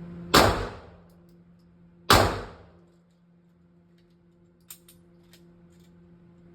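Two pistol shots about two seconds apart, each loud and sharp with a short echoing tail. A few faint light clicks follow later, over a steady low hum.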